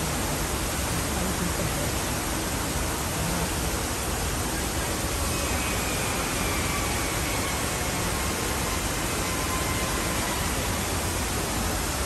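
Ornamental fountain's vertical water jets falling back into the basin: a steady, even rush of splashing water.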